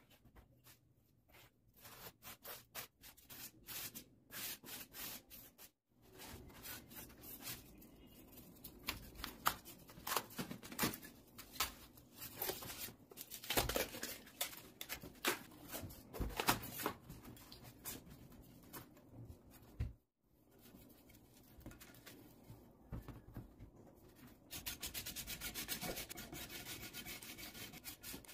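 Polystyrene foam being cut with a utility knife, snapped and rubbed by hand: irregular scratchy, squeaky scraping and crackling. Near the end it turns into a run of quick, even rubbing strokes.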